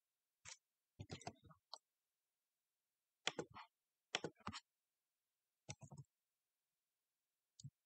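Short clicks and taps in about six small clusters, with dead silence between them.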